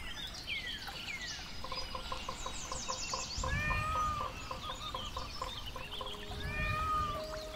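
Birds calling: falling chirps, then a quick run of fowl-like clucks and two drawn-out arching calls, over soft background music.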